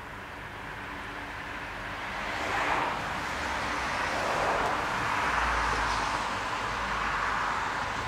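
A car passing on the road: tyre and engine noise that swells over the first few seconds and holds.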